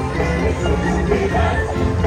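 Loud music with a strong bass and singing.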